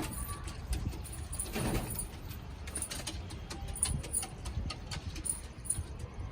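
Domestic pigeons moving about, making scattered light clicks and rustling.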